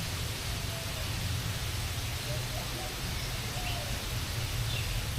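Steady aviary background noise with a low rumble, over which a few faint, short bird chirps come and go.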